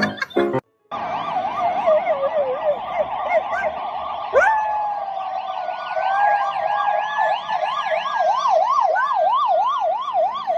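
Emergency vehicle siren, a rapid up-and-down warble that speeds up into a steady yelp. A second long, slightly wavering tone joins about four seconds in.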